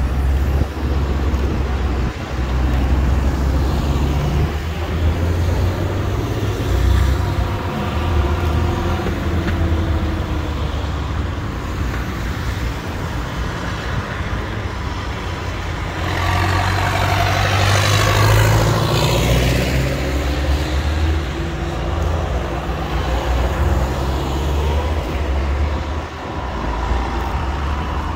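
Diesel tractor engines and cars passing by in procession, with a steady low engine rumble throughout. About two-thirds of the way through, one engine passes close: it is loudest there, then falls in pitch as it goes by.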